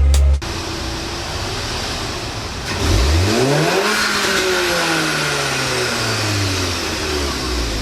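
Volkswagen Golf GTI Mk7's turbocharged 2.0-litre four-cylinder, fitted with only an aftermarket downpipe, idling and then revved once about three seconds in. The revs climb quickly and then fall away slowly.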